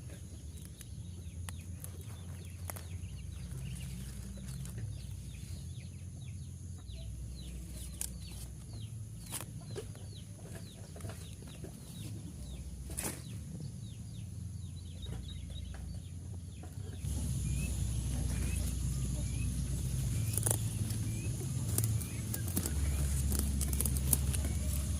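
Outdoor ambience with birds chirping in short, falling calls over a low rumble and scattered clicks. It gets louder about two-thirds of the way through, where the chirps repeat at an even pace.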